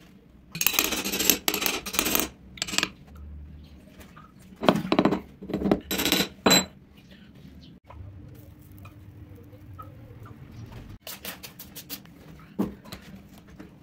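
Metal tools scraping and clinking against each other and the casting sand while a mould is made, in several loud bursts, one ending in a short metallic ring about halfway through. A quick run of sharp clicks and a single knock follow near the end.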